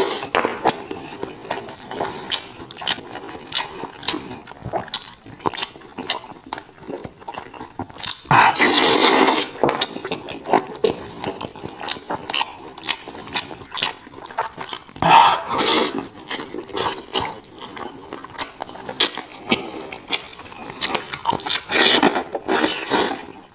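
A person eating chicken close to the microphone: chewing and biting with many small wet clicks and smacks, and three louder noisy bursts about eight, fifteen and twenty-two seconds in.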